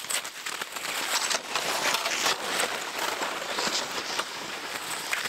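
Snowshoes crunching in snow, step after step, with the scrape of a load dragged behind on a rope.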